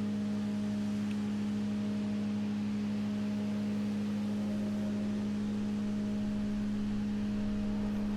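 A steady low hum, one strong held tone with fainter tones above it, unchanging throughout.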